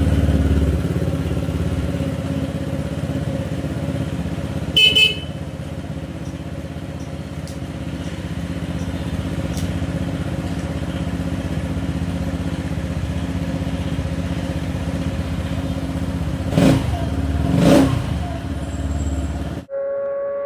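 Kymco KRV 180 scooter's single-cylinder fuel-injected engine idling steadily on a test run after its fuel injector and throttle body have been cleaned. There is a short beep about five seconds in and two brief louder bursts near the end.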